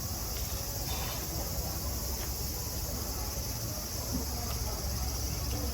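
Summer cicadas buzzing as a steady, high-pitched hiss, with a low rumble underneath.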